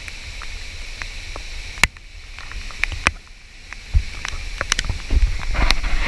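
Steady hiss of heavy rain and rushing water, broken by scattered sharp ticks and, near the end, low rumbling thumps.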